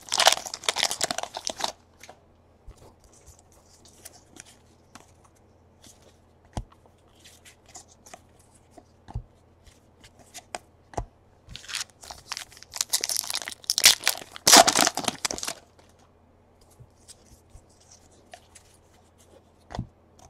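Trading-card pack wrappers being torn open and crinkled, in two loud spells, one near the start and one about two-thirds through, with light clicks of cards being handled in between.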